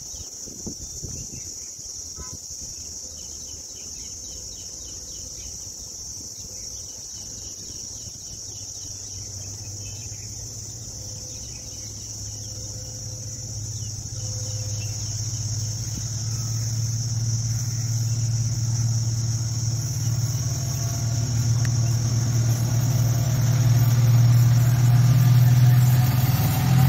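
Indian Railways WDP4D diesel locomotive accelerating toward the listener under heavy load, its EMD two-stroke diesel engine a low drone that swells steadily louder from about ten seconds in; the thick black exhaust shows it working hard. A steady high insect buzz runs underneath.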